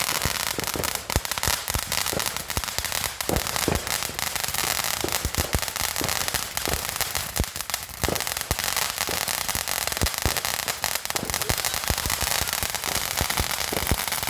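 Consumer fireworks crackling: a dense, unbroken run of rapid small pops and snaps at a steady level.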